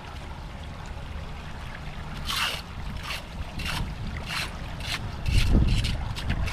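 Flood water splashing in a series of short bursts over a steady flow, with a low rumble of wind on the microphone about five seconds in.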